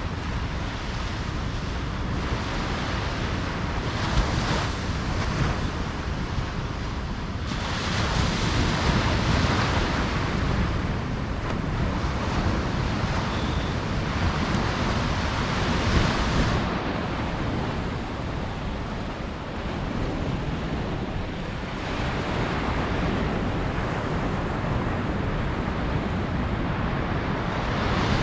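Ocean surf washing onto a beach: a continuous roar of breaking waves that swells louder about a quarter of the way in, eases off past the middle, and builds again toward the end.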